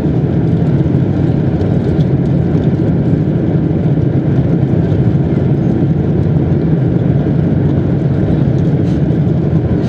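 Boeing 747-200 four-engine jet airliner in flight, a steady low rumble of engines and airflow.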